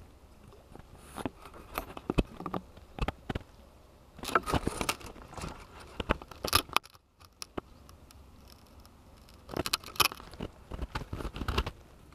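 Handling noise from a camera being held and moved about at arm's length: clusters of sharp clicks, knocks and rustles, with a brief drop to near silence about seven seconds in.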